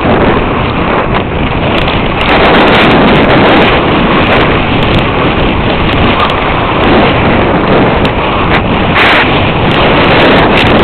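Heavy wind buffeting the microphone and the hiss and scrape of a sled sliding fast down a packed-snow run, louder from about two seconds in, with scattered knocks.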